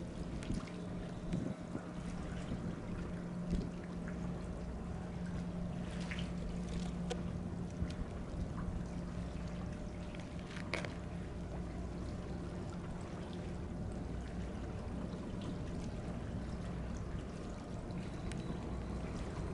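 Harbour water lapping and trickling against a concrete quay wall and a moored steel boat's hull, under a steady low hum and a few faint clicks.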